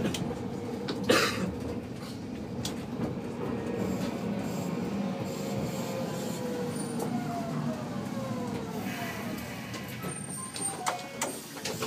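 Inside a Kumamoto City Tram 8800-series car: the tram's running noise, a steady rumble. About five to nine seconds in, a motor whine falls in pitch, and there are a few short knocks near the start and near the end.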